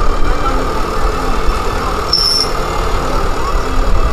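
An engine running steadily, with a short high squeak about halfway through.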